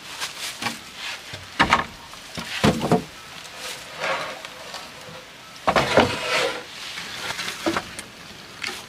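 Wooden planks knocking and clattering against one another as they are laid onto a stack of boards: a string of irregular knocks, loudest about one and a half, two and a half and six seconds in.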